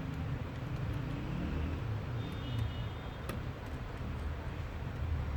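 Steady low background rumble, with a few light clicks and one sharper click about three seconds in.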